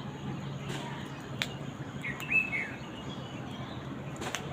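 A short bird call a little over two seconds in, a high chirp that falls away at the end, with two sharp clicks, one before and one near the end, over a steady low hum.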